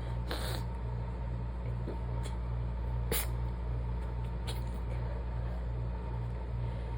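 Several short, stifled sneezes from an allergy sneezing fit: quick muffled bursts of breath, a longer one about half a second in and a sharp one about three seconds in, with fainter ones between. A steady low hum runs underneath.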